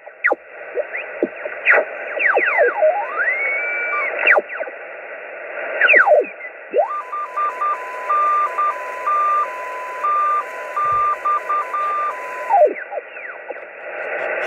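HF ham radio receiver being tuned across a band: hiss cut off above about 3 kHz, with whistles sliding up and down in pitch as the dial passes signals. About seven seconds in, a digital data signal steps back and forth between a few close tones for around five seconds, then slides down and away as tuning continues.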